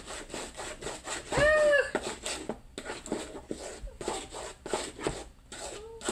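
Wooden spoon stirring thick cake batter in a mixing bowl: repeated scraping and rubbing strokes. One short squeal rises and falls about a second and a half in.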